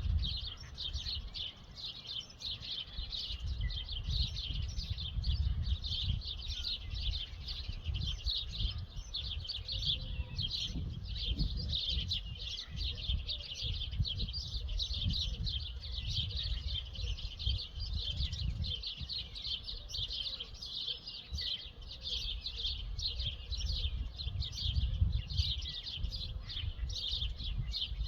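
A dawn chorus of many birds chirping at once in a dense, unbroken stream of high calls, over a low, uneven rumble.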